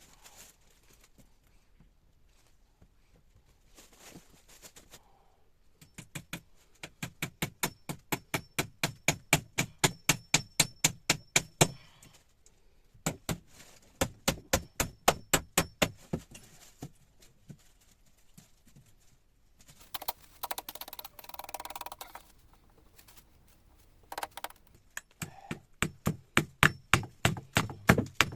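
Hand tools working wood: runs of fast, even knocks, about three or four a second, each run lasting several seconds, with short pauses between runs.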